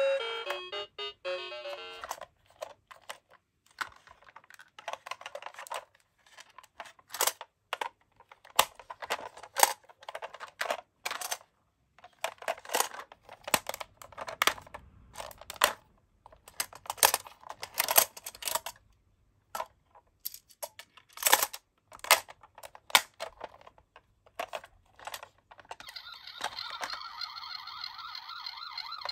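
Clicks and knocks of a plastic toy ambulance being handled, its rear doors opened and shut, after a short electronic tune that ends about two seconds in. About three seconds before the end, the toy's battery-powered siren sound starts as its blue lights come on.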